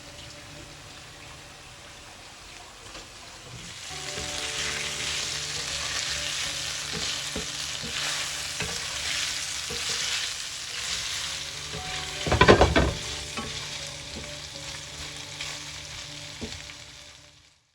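Marinated chicken sizzling as it fries in a pot and is stirred. The sizzling grows louder about four seconds in, and a brief loud clatter comes about twelve seconds in. The sound cuts off abruptly near the end.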